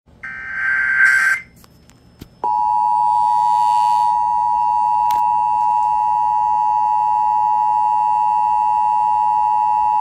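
Emergency Alert System tones from an FM broadcast played through a Midland weather radio's speaker, for a severe thunderstorm warning. First comes a brief harsh digital screech of the SAME data header. After a second's pause the long steady two-tone attention signal (853 and 960 Hz) begins and holds.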